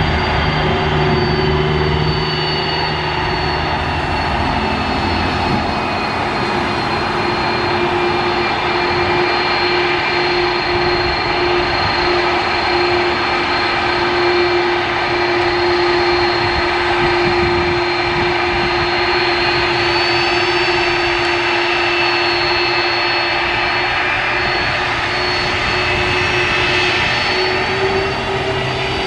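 Aircraft turbine engines running steadily: a constant rush of engine noise with a steady whine, and a few high tones that slide slightly in pitch later on.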